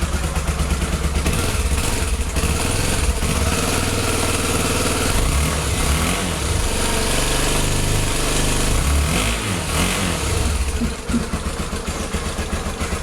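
Honda CBX 250 Twister's single-cylinder engine running through a swapped-in Honda CB exhaust, idling and then revved up and down a few times in the middle before settling back to idle near the end. The owner finds it much quieter than the original exhaust.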